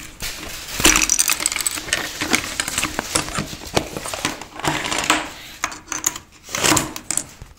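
Plastic LEGO bricks clattering and knocking as the model is handled and turned over: irregular clicks and rattles, loudest about a second in.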